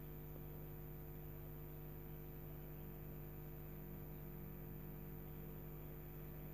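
Faint, steady electrical hum with several overtones over a low hiss, unchanging throughout.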